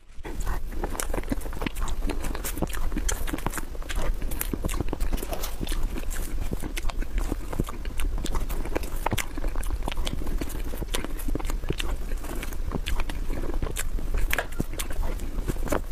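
Close-miked mouth sounds of eating soft mousse cake: a quick, irregular run of wet lip smacks and sticky chewing clicks.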